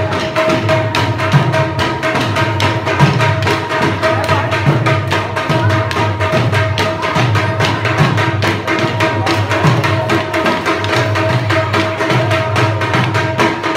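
Folk dance music: a drum beating a steady rhythm under a sustained, droning melodic tone.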